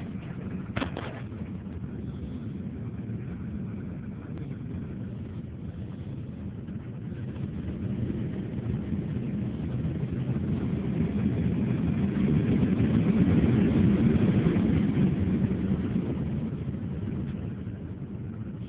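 Lada Priora's Panasonic climate-control blower fan running, a steady rush of air that builds up about halfway through and then eases off again. No whistle is heard: the whistle has been cured.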